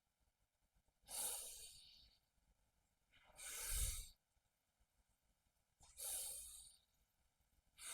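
A man's deep, audible breaths in a slow yoga breathing exercise, in and out in turn. Each breath lasts about a second with quiet gaps between, about one every two and a half seconds.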